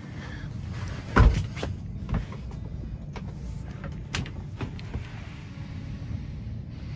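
A few sharp knocks and clicks over a steady low rumble. The loudest knock comes about a second in, and lighter ones follow around two, four and five seconds.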